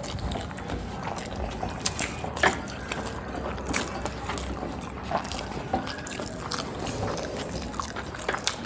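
Wet eating sounds: fingers kneading and mixing rice on brass plates, and mouths chewing and smacking, heard as many small scattered clicks and squelches, a few of them louder.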